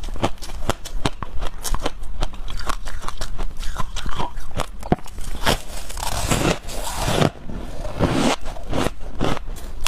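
Soft, snowy white ice being bitten and chewed: a dense run of sharp crackles and crunches, heavier and fuller from about six seconds in.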